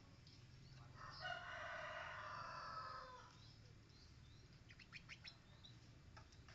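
A rooster crowing once, a call of about two seconds whose pitch drops at the end. A few light clicks follow about five seconds in.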